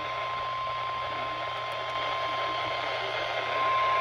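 NOAA Weather Radio warning alarm tone, one steady high-pitched tone held unbroken over radio static hiss. It is the alert tone that signals a severe weather warning is about to be read.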